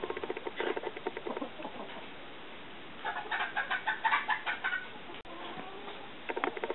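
A strutting tom turkey's courtship display: quick trains of rattling ticks from his shaken, rustling feathers, in short runs during the first second and a half. About three seconds in comes a higher, faster rattle lasting over a second.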